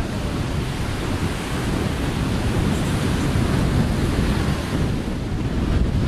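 Wind buffeting the microphone in a steady, rumbling rush over the wash of surf on a sandy beach.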